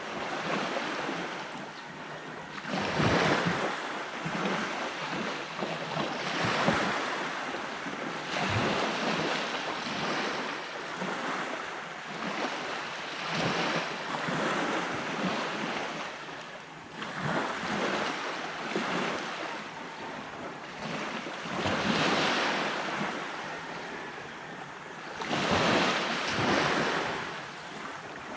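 Sea waves breaking and washing on a beach, the surf swelling and ebbing every few seconds, with wind buffeting the microphone.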